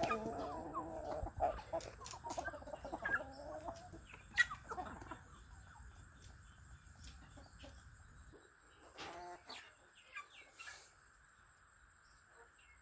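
Chickens clucking, busiest and loudest in the first four seconds, then thinning to a few faint scattered clucks.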